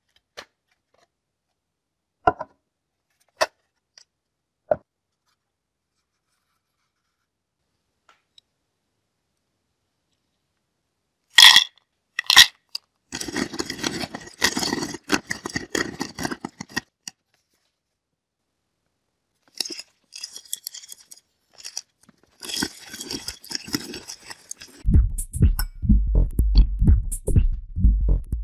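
A few separate clicks, then two sharp clacks, followed by bursts of crunching and scraping as a hand-turned manual nut grinder crushes peanuts; near the end a heavier low thumping joins the crunching.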